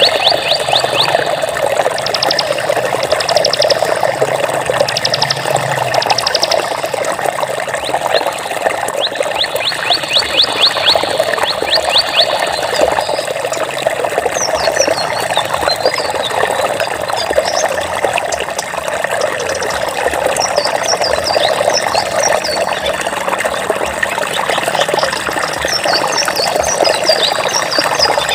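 Flowing water, a steady rushing trickle. Over it come high, rapid trills in the first half and short, quick chirps through the second half.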